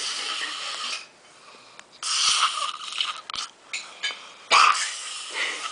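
A sleeping man's wheezy, hissing breaths and snores, each about a second long, with a brief louder one near the end.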